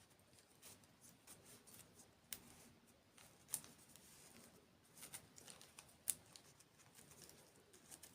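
Faint ASMR eating sounds: scattered sharp, crisp clicks and crackles of chewing dessert, the loudest about six seconds in.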